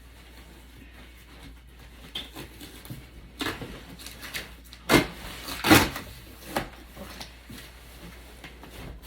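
Large cardboard shipping box being handled: scraping and rustling with a few knocks, the two loudest about five and six seconds in.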